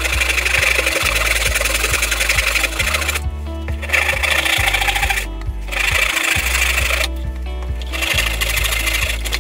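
Hand saw cutting through protruding wooden corner keys to trim them flush with a box side, in runs of quick rasping strokes broken by three short pauses. Background music with a steady bass line plays throughout.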